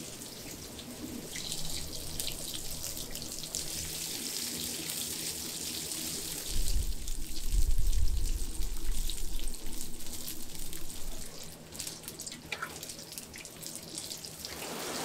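Scallion bread sticks deep-frying in a wok of hot oil, a steady sizzle and crackle. A loud low rumble joins it for a couple of seconds near the middle.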